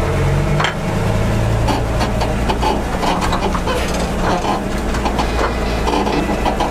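A 10-ton 8x8 military truck's engine running under load as it crawls through a ravine with its rear differentials locked: a steady low drone with scattered knocks and clanks.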